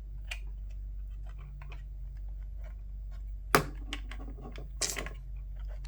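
Small plastic headset parts being handled and pressed together: scattered light clicks and taps, with one sharp click about three and a half seconds in and another near five seconds.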